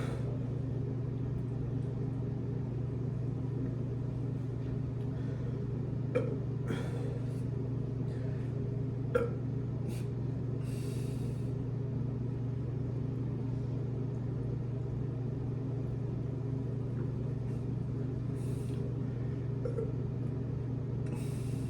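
A steady low hum throughout, with a couple of short, quiet burps about six and nine seconds in and a few brief soft hisses.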